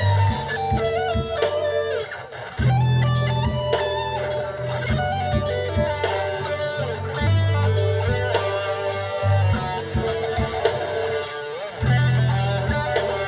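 Electric guitar playing a melodic lead line with some bent notes, over a backing of low bass notes and a steady beat.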